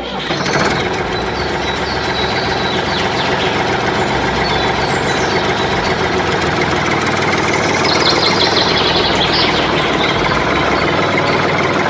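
A motor running steadily, with a few faint high chirps about eight seconds in.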